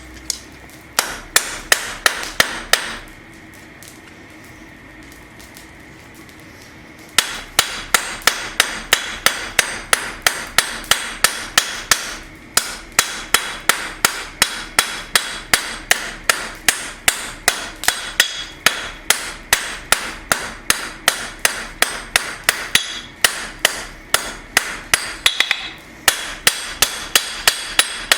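Blacksmith's hammer striking a steel bar on an anvil in a quick, steady rhythm, each blow ringing. A short run of blows, a pause of a few seconds, then a long run with brief breaks. The blows knock down the corners of the faceted bar to round it off.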